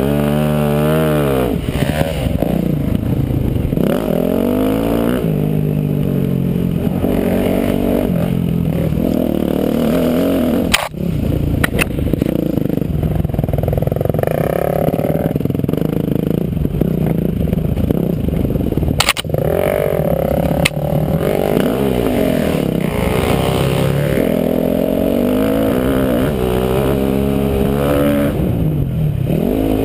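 Dirt bike engine revving up and dropping back again and again as it is ridden round a motocross track, with a few sharp clicks along the way.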